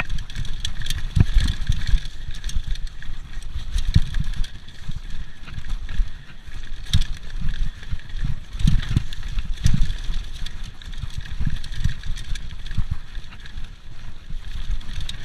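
Mountain bike ridden fast down a dirt trail, with uneven wind rumble on the camera microphone and tyre noise. The bike knocks and rattles repeatedly as it goes over bumps.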